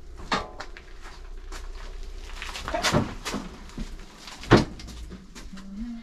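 Knocks and clunks of a Royal Enfield Himalayan motorcycle being moved onto a workshop motorcycle lift, with one loud bang about four and a half seconds in.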